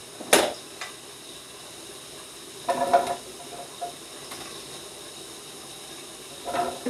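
Stainless steel mixing bowl clanking and ringing as cut cucumber and ginger pieces are scooped from it by hand into a blender jar. A sharp knock comes just after the start, then a ringing clank about three seconds in and another near the end, over a steady faint hiss.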